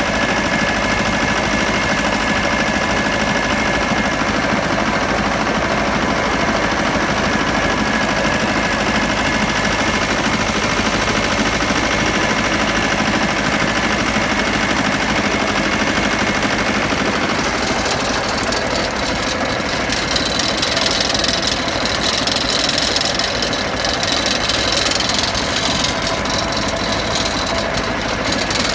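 Pasquali 996E tractor engine running steadily under way on the road while towing a trailer loaded with gravel. About two-thirds of the way through, a higher-pitched noise joins in for several seconds.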